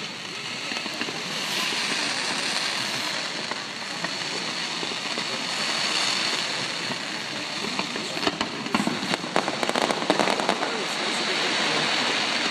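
Fireworks going off, with a dense run of rapid crackling pops from about eight to eleven seconds in.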